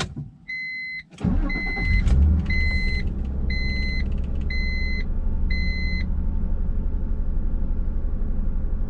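1994 Acura Legend's V6 engine catching about a second in and settling into a steady idle. A dashboard warning chime beeps six times, about once a second, over the first six seconds.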